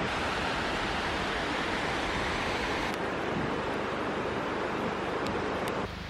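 Steady rushing of water from the many waterfalls cascading down a steep rock face, an even hiss-like roar without any rhythm.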